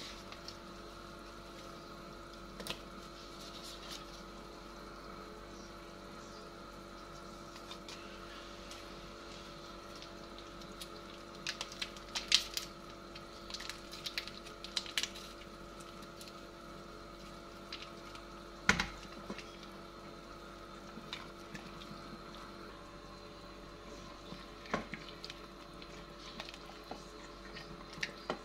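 Pot of beef broth simmering over a steady hum, with clinks, clatters and splashes as rawon spice paste is poured in around the middle, and a single sharp knock about two-thirds of the way through.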